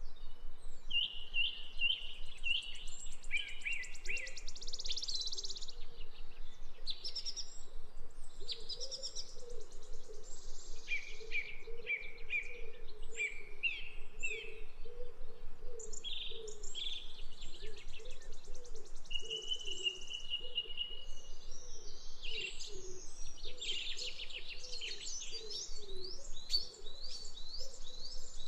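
Small birds chirping and singing in quick runs of short, high notes that come and go throughout. A fainter low warbling runs underneath.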